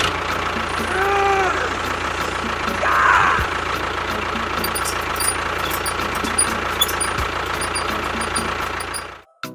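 An engine running steadily, with a short pitched sound about a second in and a brief squeal around three seconds in; it cuts off abruptly near the end.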